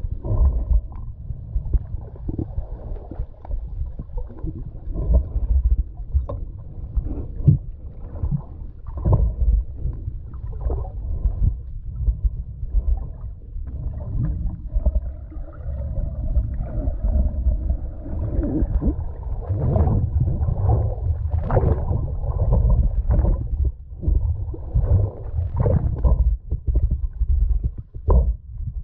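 Muffled underwater water noise recorded through a camera's waterproof housing: a low rumble of water moving around a swimming diver, broken by irregular short thuds and bubbly sounds.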